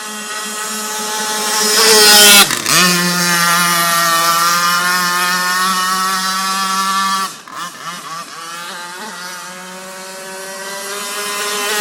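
Two-stroke petrol engine of a radio-controlled gas boat running at high revs. It climbs to its loudest about two seconds in and dips for a moment, then holds a steady pitch. About seven seconds in the revs drop sharply and waver, then settle lower and build back up toward the end.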